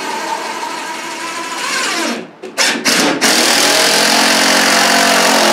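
Power drill driving screws at an angle through an old window's frame into the wall framing, toe-screwing it in place. One long run slows and stops about two seconds in, a couple of short blips follow, then a second steady run.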